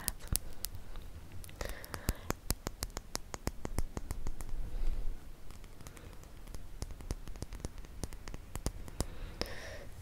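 Fingernails tapping and scratching on a book, many light, uneven clicks, with brief faint whispers about two seconds in and near the end.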